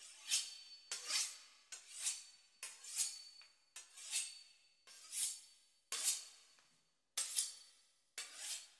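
Knife strokes, roughly one a second, each a sharp metallic scraping swish that fades out with a faint ring, over quiet music.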